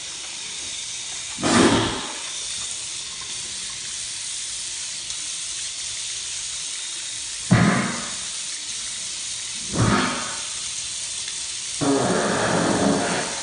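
Steady hiss of running water in a bathroom, broken three times by a short, louder burst, with a louder stretch of the rush near the end.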